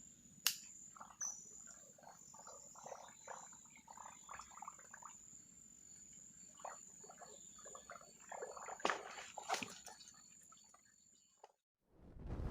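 Insects and frogs calling: a steady high insect trill with many short frog calls over it and a few sharp clicks. It all cuts off near the end.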